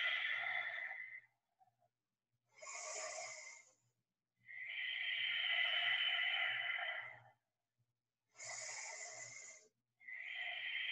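A woman's slow, deep yogic breathing, each breath plainly audible. Short, hissier breaths of about a second and a half alternate with longer, lower breaths of about three seconds, with brief silences between them.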